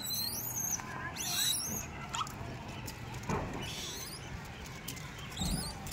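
High-pitched squeaky chirping calls in three short bouts: at the start, about a second and a half in, and near the end. Faint ticks and rustles come in between.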